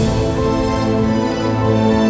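Instrumental background music with sustained chords over a steady low bass.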